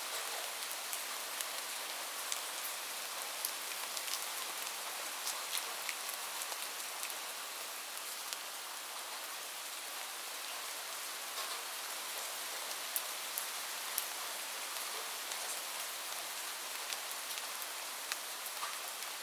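Light, steady rain falling on a surface, a continuous even hiss with scattered individual drops ticking distinctly.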